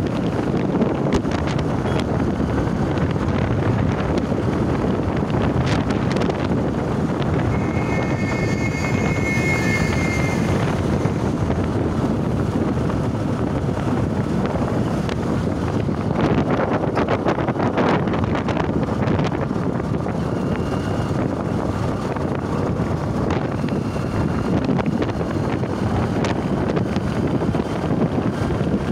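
Wind rushing over the microphone and road noise from a vehicle moving along a paved road, steady throughout. A brief high tone sounds about eight seconds in.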